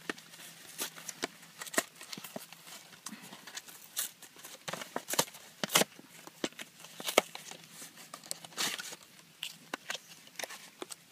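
Cardboard sleeve of an MRE entree being opened by hand and the foil-laminate pouch slid out of it: irregular crinkling and rustling of paperboard and plastic packaging, with many short sharp crackles.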